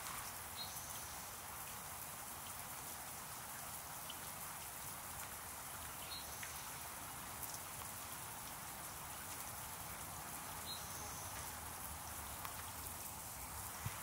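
Small backyard water fountain splashing and pattering steadily, with a few faint short high chirps.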